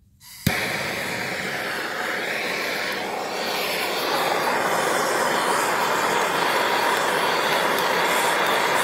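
Handheld gas torch lit with a sharp pop about half a second in, then the flame's steady hiss, growing a little louder about four seconds in: the torch fired up to heat copper fittings for sweat soldering.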